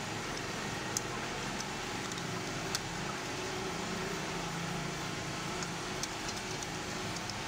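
Steady background noise with a few sharp light clicks as the plastic multi-purpose tray feed assembly of a Kyocera TASKalfa copier is handled.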